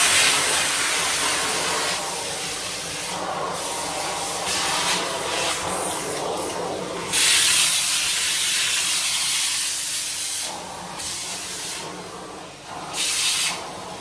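Numatic Henry cylinder vacuum cleaner running, with a steady motor hum under a loud suction hiss. The hiss swells and fades as the nozzle is pressed to and lifted from the surface: loudest about halfway through, with a short surge near the end.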